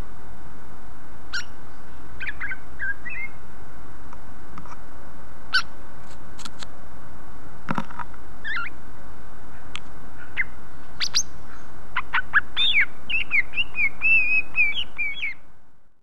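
Caged cucak ijo (greater green leafbird) giving scattered short chirps and calls, then breaking into a quick run of warbled song notes near the end, over a steady background hiss that fades out at the close.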